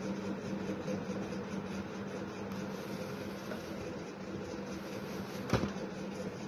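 Diesel train locomotive engine running with a steady hum. A single sharp click comes about five and a half seconds in.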